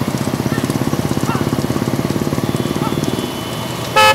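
A pack of motorcycles running at low speed, a fast steady putter of their engines, easing off after about three seconds. A vehicle horn gives a short, loud honk at the very end.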